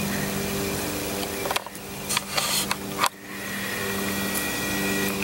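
A steady mechanical hum with a low pitch and overtones. It dips briefly twice, and a few light clicks come in the middle.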